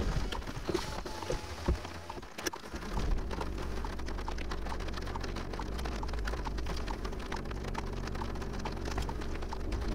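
Scattered raindrops tapping on a car's windshield and roof, heard from inside the car, over a steady low rumble that gets louder about three seconds in.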